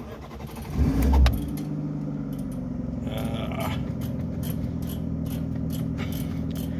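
Ford Fiesta engine starting: it cranks briefly, catches with a loud burst about a second in, then settles into a steady idle. The start shows the immobiliser has accepted the key's repaired transponder chip with its replaced coil.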